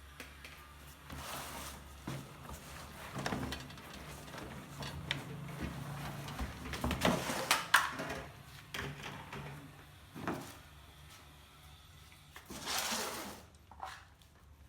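Vacuum cleaner accessories and their packaging being handled during unboxing: rustling of plastic and cardboard with irregular knocks and clicks of plastic parts, the loudest knocks about seven to eight seconds in, and a longer rustle near the end.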